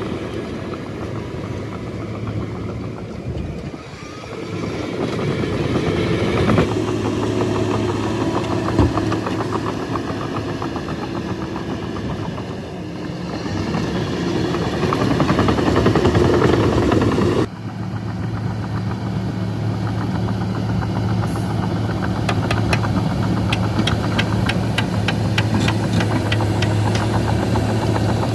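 Shantui bulldozer's diesel engine working under changing load, rising and falling in loudness. About two thirds of the way through it drops suddenly to a steadier running sound, joined near the end by a fast, even ticking clatter.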